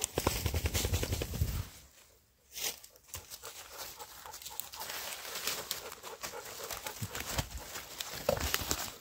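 Rustling and footsteps in dry fallen leaves, from a dog nosing about and a person getting up and moving. There is a low rumble of movement close to the microphone in the first second and a half, then scattered leaf crackles.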